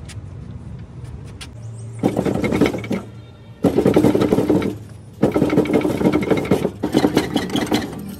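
Bursts of rapid, rhythmic mechanical rattling in three runs, each lasting one to three seconds, over a low steady hum.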